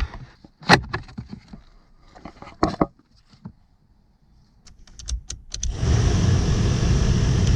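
A few clicks and knocks of handling parts, then about three-quarters of the way in a car heater blower motor is switched on and runs with a steady whirring rush. It sounds okay: the motor itself is healthy, and its working only on the top setting is blamed on the heater resistor pack.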